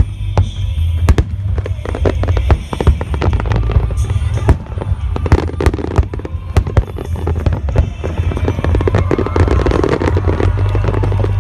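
Fireworks display: a dense run of sharp bangs and crackles over a heavy low rumble, with music playing along.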